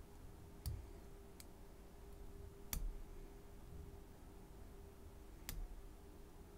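A lock pick and tension wrench working the pins of an American A701D padlock: four small sharp clicks, irregularly spaced, the loudest near the middle, over a faint steady hum.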